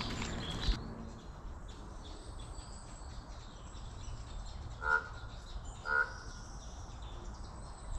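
Outdoor ambience with faint bird chirps and two short bird calls about a second apart, a little past halfway.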